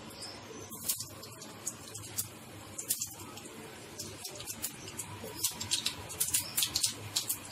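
Mustard and cumin seeds crackling and sizzling in hot oil in a nonstick frying pan as a tempering, with quick sharp pops that come thicker about five seconds in.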